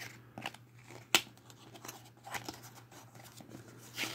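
Hands handling a Zippo lighter's presentation box: scattered small clicks and rustles, with one sharp click about a second in, over a low steady hum.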